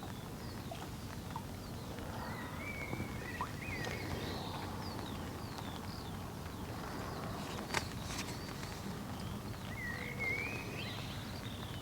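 Small birds chirping and singing in short wavering phrases over a steady low rumble of outdoor background noise, with a single sharp click about eight seconds in.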